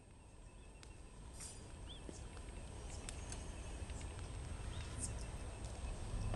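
Faint outdoor ambience: a few short bird chirps and scattered light ticks over a low rumble that swells steadily louder.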